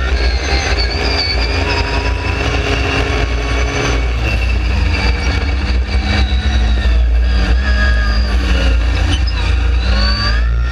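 Dune buggy engine running under way across sand, holding a steady pitch for the first few seconds, then rising and falling, over a heavy low rumble of wind on the onboard microphone.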